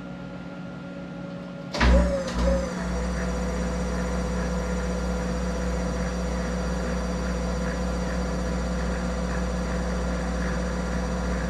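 Monarch 10EE toolroom lathe starting up about two seconds in with a sudden thump, then running steadily with a low hum and a high whine that dips briefly before holding steady.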